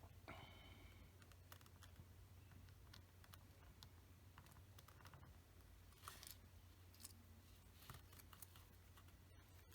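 Near silence: room tone with a steady low hum and a few faint, scattered clicks of small plastic model-kit parts being handled.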